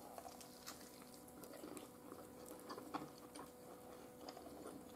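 Faint chewing of a mouthful of crisp-coated air-fried chicken: scattered soft clicks and crackles, with a low steady hum beneath.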